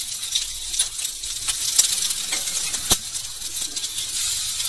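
Egg-coated potato kababs sizzling in shallow oil on a flat griddle (tawa), with light clicks of metal tongs against the pan and one sharp metal tap about three seconds in as a kabab is turned.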